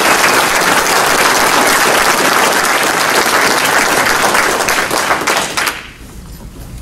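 A large crowd applauding, many hands clapping at once; the applause dies away near the end.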